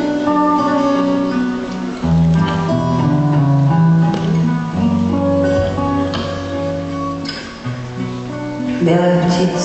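Instrumental music: guitar chords over a bass line, the harmony changing every two to three seconds, leading into a song.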